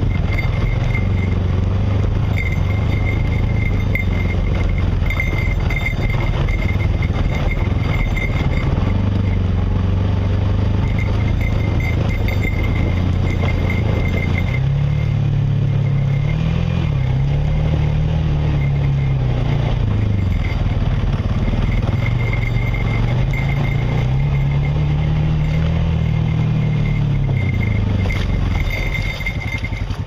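Off-road vehicle's engine running while driving a rough trail. It holds steady at first, then from about halfway the revs rise and fall several times.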